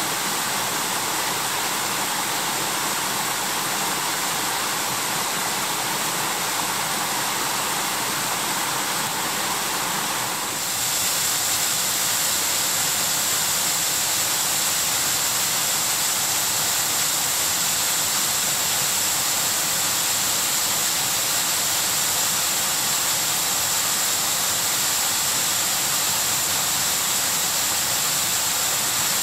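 Rushing water from a waterfall and the rocky stream below it: a steady rush of water. About ten seconds in it changes to a brighter, hissier sound, the plunging falls heard close up.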